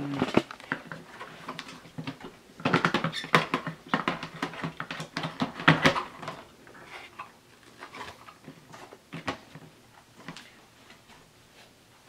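Plastic parts of a Hoover Rewind bagless upright vacuum being handled: the dust cup and filter knocking, clicking and scraping as they are fitted back onto the body. The handling is busiest in the first half and turns to sparser taps later.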